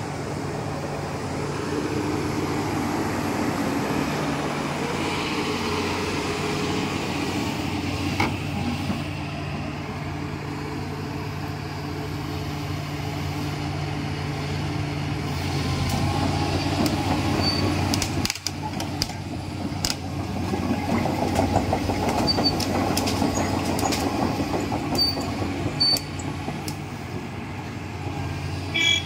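Kobelco SK380XD LC excavator's diesel engine running steadily while its hydraulics lift and swing the boom and bucket in a function check after hydraulic work. Sharp clicks and knocks come now and then in the second half.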